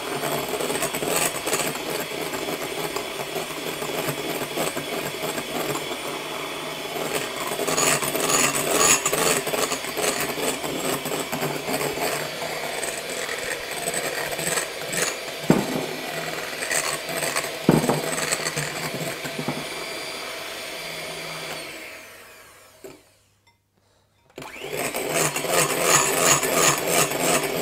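Electric hand mixer whirring steadily as its beaters whip egg whites in a glass bowl toward soft peaks, with two short knocks in the middle. About 22 seconds in the motor winds down and stops for a couple of seconds, then starts again.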